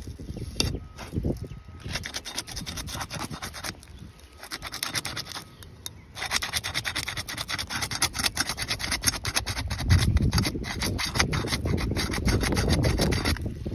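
A flat pry bar scraping and rasping against the gritty surface of 3-tab asphalt shingles as it is worked under a sealed tab. The sound comes in spells of rapid scratching broken by short pauses. The tab's seal strip holds fast and will not come loose.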